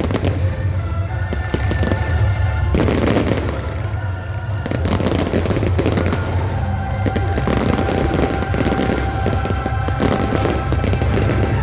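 Aerial fireworks bursting and crackling in quick succession, with music playing alongside.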